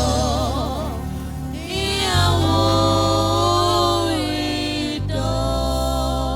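Gospel worship music: long held chords over a steady bass, with a wavering melody line in the first second.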